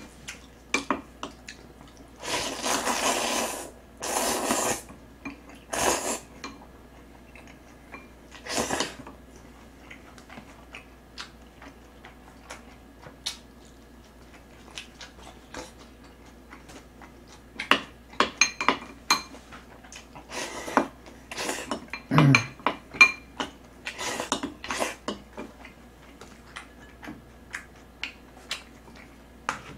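Chopsticks and a spoon clicking and scraping against bowls, a stone pot and a metal tray while eating, in many short separate clicks. A few longer noisy bursts come in the first nine seconds, and a denser run of louder clicks comes in the second half.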